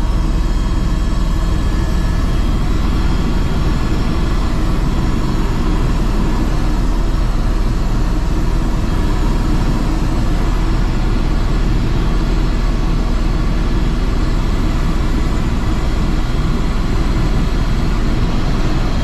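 Airbus H130 helicopter in cruise flight heard from inside the cabin: a loud, steady rotor and engine rumble with a few faint steady high tones over it.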